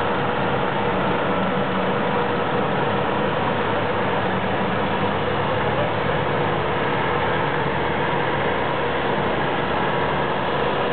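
A heavy engine running steadily at a constant speed, a continuous mechanical drone with a pulsing low hum underneath.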